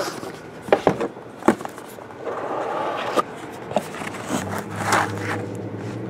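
Handling of a rigid cardboard trading-card box and a hard plastic card holder: scattered clicks and taps, with a brief scraping rub as the lid and packing are worked. A low steady hum comes in about four seconds in.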